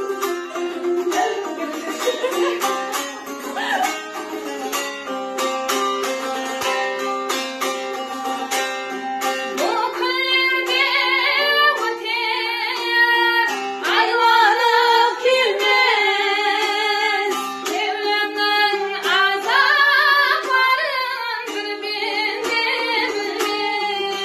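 Karakalpak song accompanied on the dutar, a two-stringed long-necked lute, strummed steadily. A woman's singing voice comes in about ten seconds in, with vibrato.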